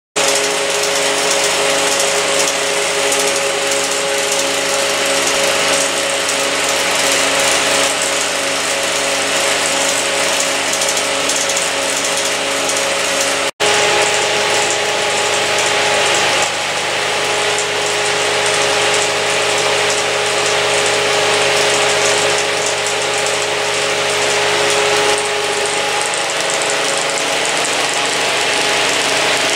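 A Bauer P5 16mm film projector and a motor-driven Nipkow scanning disk running together: a steady mechanical whirr and clatter with a constant hum in it. The sound breaks off briefly near the middle.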